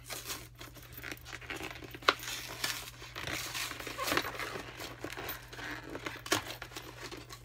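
Packaging of a boxed Pokémon trading-card and figure set being opened by hand: irregular rustling and crinkling with a few sharp clicks, the loudest about two seconds in.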